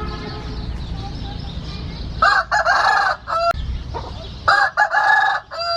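Rooster crowing twice, each crow lasting about a second, the second coming about a second after the first ends.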